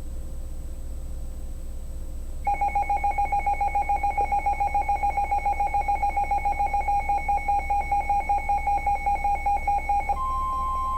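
NOAA Weather Radio alert tones over a low hum. About two and a half seconds in, a loud, rapidly pulsing two-tone alert signal starts. Near the end it changes to a steady single tone: the 1050 Hz warning alarm tone that comes before a new warning message.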